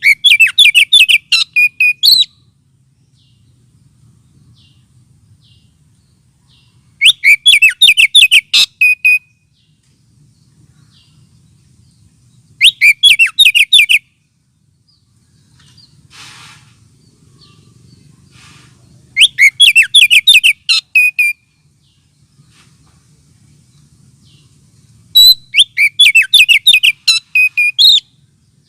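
Oriental magpie-robin (kacer) lure call: five loud bursts of rapid chirping notes, each about two seconds long, repeating about every six seconds. It is the kind of call played to provoke and fire up a kacer.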